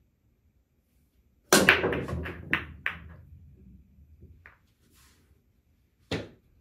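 Pool break shot: the cue ball smashes into the racked balls about a second and a half in, followed by a rapid string of sharp clacks as the balls hit each other and the rails, with the low rumble of balls rolling across the cloth fading out over the next two seconds. Another single sharp clack of a ball comes near the end.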